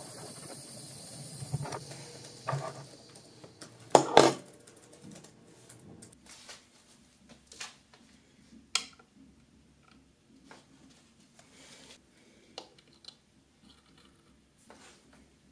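Hiss of a small brass hand-held gas torch for the first few seconds, then a sharp double knock about four seconds in. After that come scattered light clicks and taps of a miniature glass wine bottle and wine glass being set down on a hard countertop.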